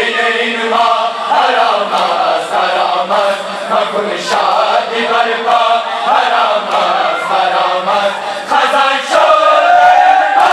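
A large crowd of men chanting a noha (Muharram lament) in unison, with sharp slaps of matam chest-beating scattered through it.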